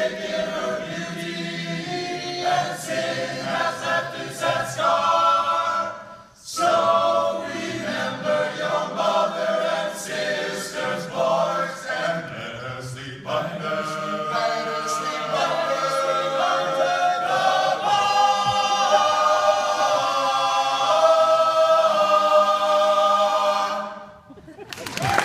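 Male a cappella group singing in close harmony, voices only with no instruments. There is a short break about six seconds in, then a long sustained chord that cuts off near the end.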